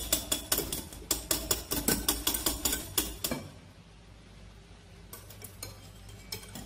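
Metal wire whisk clinking against a glass bowl while beating egg whites with sugar into a foam, about five quick strokes a second. The clinking stops a little past halfway as the whisk is lifted, then a few light strokes resume near the end.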